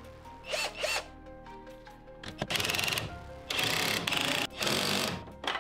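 Power drill driving fasteners in several short bursts of about a second each, over background music.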